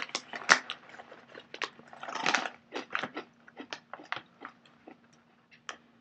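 Someone chewing crunchy Harvest Rice Stick snacks, with irregular sharp crunches that thin out toward the end.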